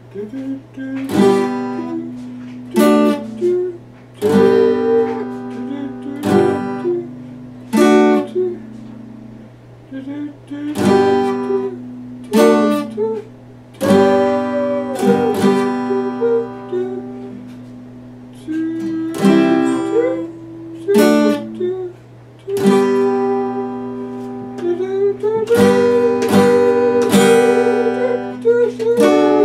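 Epiphone acoustic guitar being played: chords struck every second or two and left to ring out before the next.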